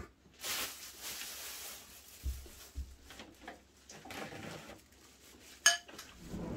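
Cutlery and dishes clinking at a meal table as eating begins: scattered small knocks and one sharp clink near the end. There is also a short rush of noise about half a second in.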